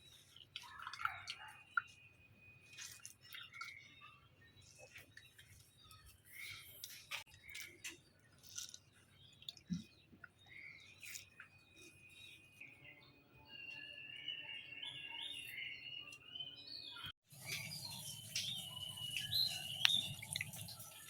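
Small birds chirping and calling, with scattered light clicks and knocks. After a brief break near the end, the birdsong is louder.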